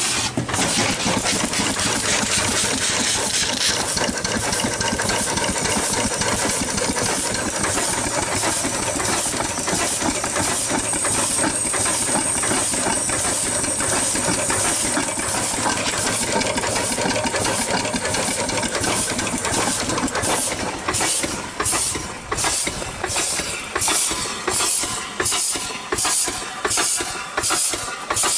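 Steam hissing steadily through an opened steam valve and line. About 20 seconds in, a horizontal stationary steam engine starts turning over, its exhaust chuffing in an even rhythm of about one and a half beats a second.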